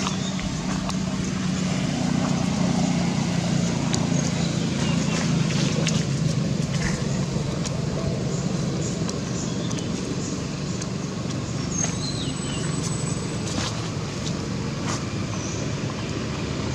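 A motor vehicle's engine running steadily, a constant low rumble, with a few short high calls over it.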